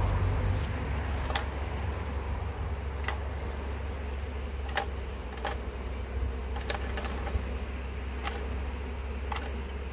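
A box full of honeybees humming steadily as they are tipped into a hive, with about nine sharp clicks scattered through the hum.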